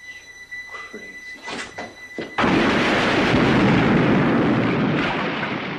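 A house explodes in a film soundtrack: a sudden loud blast about two and a half seconds in, then a sustained rumble that slowly eases off. Before it there are only faint, quieter film sounds and a steady high tone.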